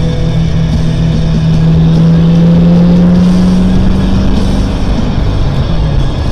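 1970 Ford Mustang's engine running while the car drives along. Its pitch climbs slowly over the first few seconds, then drops about five seconds in. Music plays alongside.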